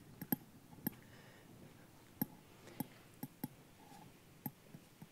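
Faint, sharp clicks of a handheld presentation remote pressed about nine times at uneven intervals, with the slides not advancing.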